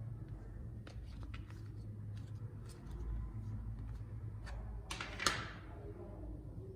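Light clicks and taps of small hard objects being handled, with one louder sharp click about five seconds in, over a low steady hum.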